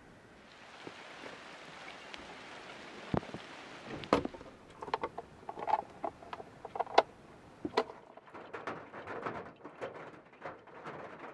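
Rain on the van's roof as a steady hiss. From about four seconds in, a run of short clicks and clinks as cookware and a kettle are handled at the counter inside.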